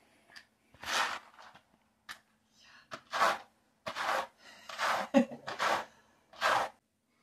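Scratchy strokes of a brush pulled through long dog fur, a series of separate strokes with short gaps, roughly one a second.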